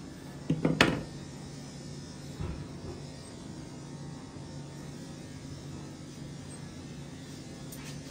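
Steady electric hum of grooming-room equipment, broken by one loud sharp click about a second in and a softer knock around two and a half seconds. Near the end, quick, evenly spaced snips of grooming shears begin, several a second.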